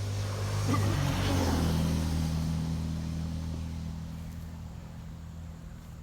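Chainsaw engine running at a low steady speed. About a second in, its note shifts and a rushing noise swells, then slowly fades.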